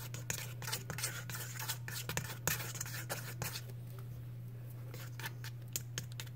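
Broken spoon stub scraping and clicking against a stainless steel bowl as it stirs thick slime mixture, with a quieter pause about two-thirds through.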